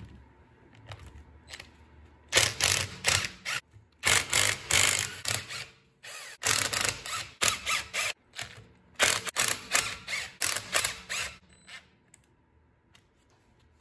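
Cordless impact driver hammering loose the cover bolts on a Dana 30 differential, in several rattling bursts of a second or two each with short pauses between.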